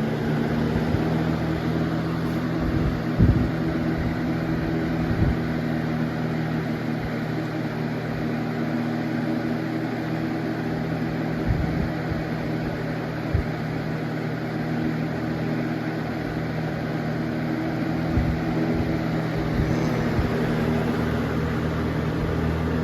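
Lasko model 3780 box fan running on its high setting: a steady rush of air over an even motor hum, with a few short low thumps scattered through it.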